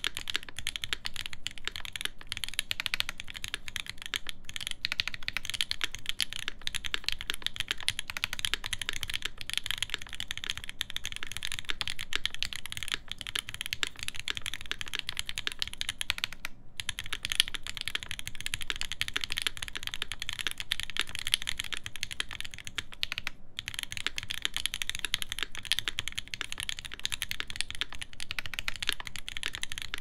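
Fast, continuous typing on a Mesa TKL mechanical keyboard with a stainless steel plate, GMK keycaps and JWK Giant v4 switches lubed with Krytox 205g0: a dense stream of key clacks with two brief pauses, about halfway and about three quarters through.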